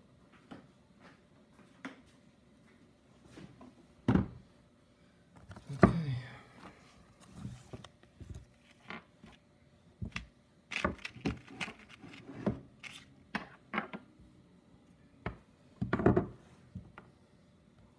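Hand tools and metal shock-absorber parts being handled: scattered clicks, taps and scrapes, with a few louder knocks about four, six and sixteen seconds in.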